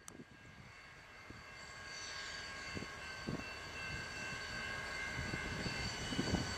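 Diesel freight locomotive approaching, its drone growing steadily louder, with a steady high-pitched whine over it.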